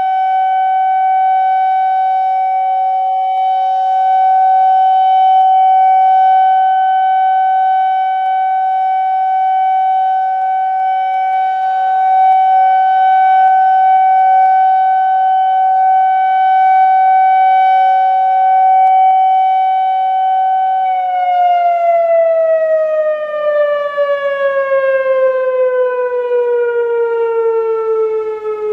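Whelen WS-2750 electronic outdoor warning siren sounding a steady tone for its scheduled test, swelling and fading a little every few seconds. About 21 seconds in, the tone begins sliding steadily down in pitch as the siren winds down.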